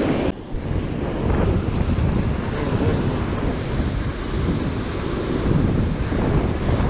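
Strong wind buffeting the microphone over the steady rush of ocean surf breaking on the beach.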